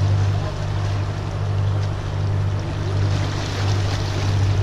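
Sailing catamaran under way with a steady, even engine hum, water rushing in the wake and some wind noise.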